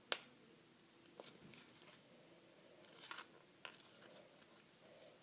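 Faint handling noises of a putty package being pried at and failing to open: one sharp click just after the start, then a few soft clicks and a brief crinkle about three seconds in.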